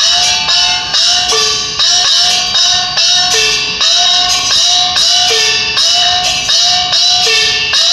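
Chinese opera gong-and-cymbal percussion accompanying Hokkien puppet opera: strikes about twice a second, a small gong whose pitch rises just after each stroke, a lower gong about every two seconds, and bright cymbals over the top.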